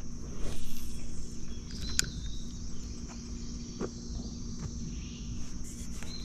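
Steady high-pitched chorus of summer insects, with a steady low hum under it and a couple of sharp clicks about two and four seconds in.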